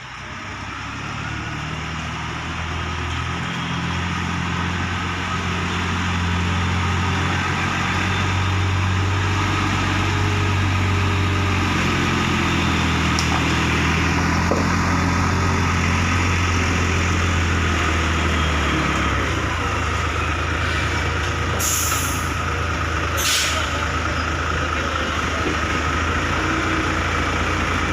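Heavy diesel truck engine running steadily, growing louder over the first several seconds. Near the end come two short bursts of air hiss, about a second and a half apart.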